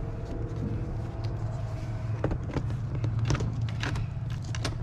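Scattered light clicks and small knocks from parts of a generator being handled, over a steady low hum.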